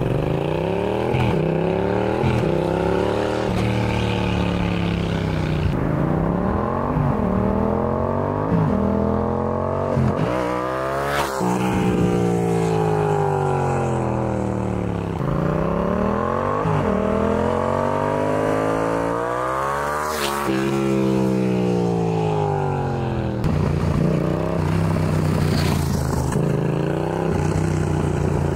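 Yamaha XSR700's parallel-twin engine through a Shark SRC 4 aftermarket exhaust with its dB killer fitted, accelerating through the gears with the pitch climbing at each upshift, then passing by with the pitch sweeping and falling as it goes. Near the end it settles to a steadier, lower engine note.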